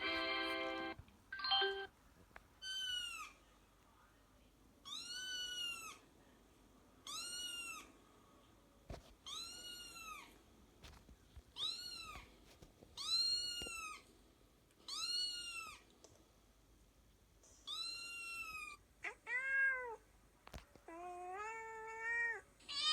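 Recorded cat meows played back: a brief buzzy tone at the start, then about eight alike meows that rise and fall in pitch, one every couple of seconds, then two differently shaped cat calls near the end.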